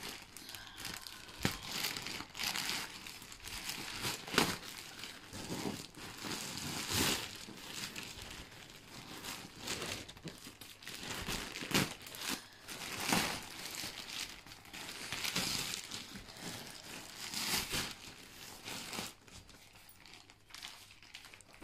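Plastic mailing bag crinkling and rustling as it is torn open by hand, in irregular bursts of crackle.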